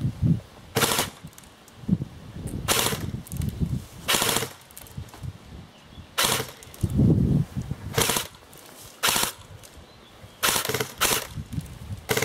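Airsoft rifles firing short bursts, about eight clattering bursts a second or so apart, some closer together near the end.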